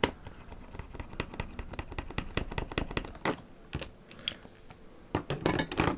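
Irregular light clicks and taps, several a second, of small tools and a circuit board being handled on a wooden desk, with a few louder knocks near the end.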